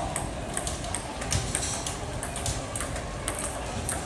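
Table tennis balls tapping against a paddle and bouncing on the table, light sharp clicks several times a second at an uneven pace, over a steady low background rumble.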